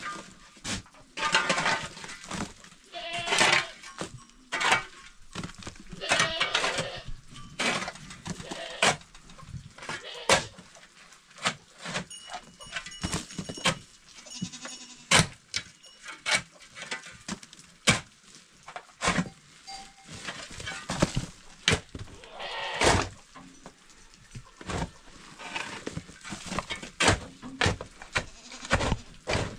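Goats bleating several times, among frequent sharp knocks and clatter.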